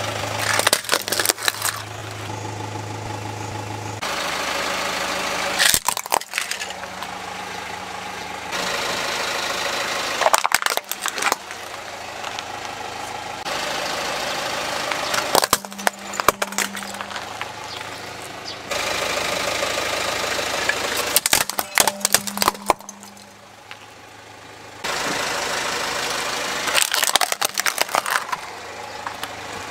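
Car engine idling while its tyre rolls over hard plastic toys. Clusters of sharp cracks and crunches come about every five seconds as each toy breaks under the wheel.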